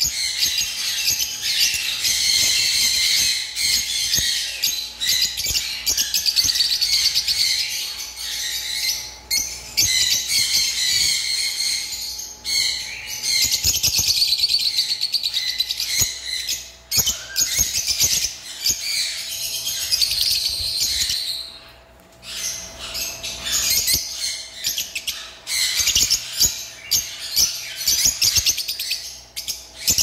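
A group of caged lovebirds chattering in rapid, shrill, high-pitched chirps, almost nonstop with a few brief pauses.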